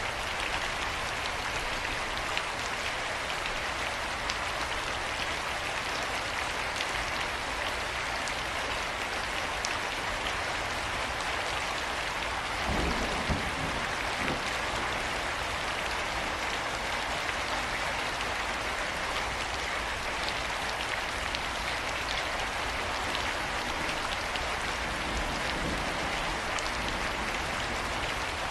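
Steady rain falling, a continuous hiss with scattered individual drops ticking. A brief louder, lower patch comes about halfway through.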